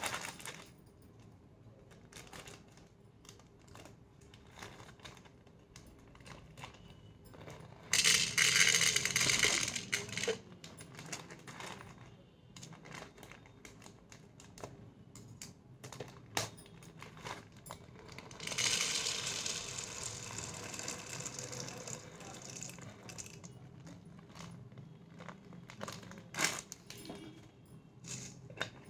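Whole black peppercorns being poured into a small plastic spice jar: two stretches of dense rattling, about eight seconds in and again near nineteen seconds in, with packet crinkling and small clicks of jars and lids between them.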